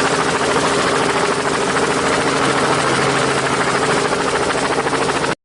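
A motor running steadily with a fast, even buzz, cutting off abruptly near the end.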